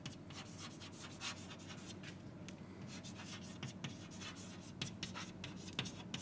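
Chalk writing on a blackboard: a quick, irregular run of short scratching strokes as words are written out, over a faint steady hum.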